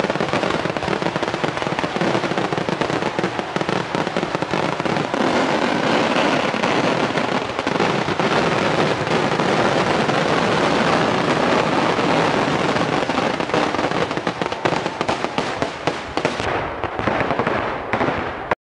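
Dense fireworks barrage: an unbroken run of rapid bangs and crackling at a steady high level, thinning a little near the end and cutting off suddenly.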